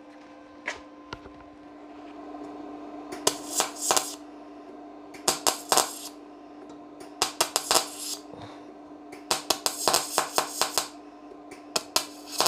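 MAG welder tack-welding 0.7 mm thin sheet steel with 0.8 mm solid wire at 50 amps. The arc crackles in about five short bursts, one per tack, over a steady hum.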